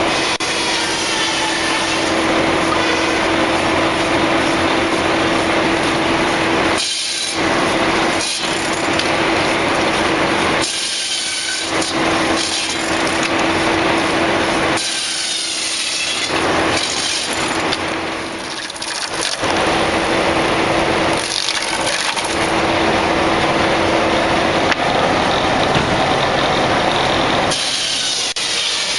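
Stave saw ripping curved staves from a spruce block: loud, hissing cuts through the wood over the steady hum of the running mill machinery. The cuts come in repeated passes a few seconds long, with brief lulls between them as each stave comes off.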